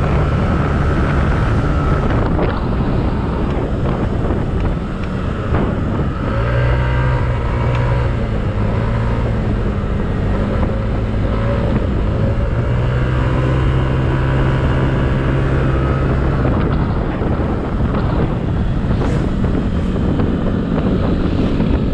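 Yamaha Aerox 155 scooter's single-cylinder engine running at road speed, its pitch rising and falling with the throttle, under a steady rush of wind on the microphone.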